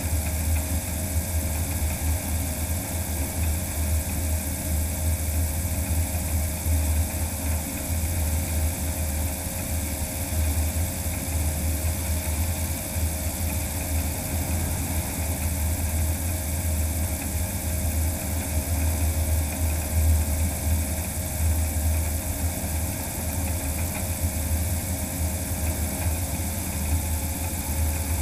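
Steady low rumble of Harbour Air's all-electric DHC-2 Beaver floatplane, its magniX magni500 electric motor turning the propeller as it moves across the water on its floats, heard from under the wing. A faint steady hum runs above it.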